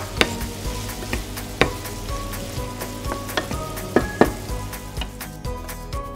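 Carrot and bacon sizzling in a frying pan while a wooden spatula stirs and scrapes them, with several sharp knocks of the spatula against the pan. The sizzle dies down near the end as the food is scraped out of the pan.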